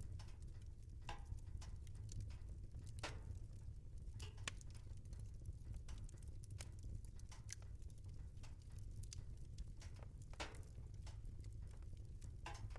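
Wood fire burning in a fireplace: a low steady rumble with irregular crackles and pops, a few louder snaps scattered through.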